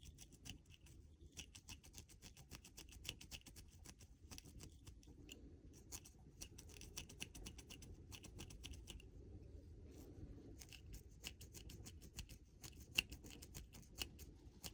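Faint, rapid, irregular crackling clicks of dreadlock hair being worked with a crochet hook and pulled at different angles to lock an extension in.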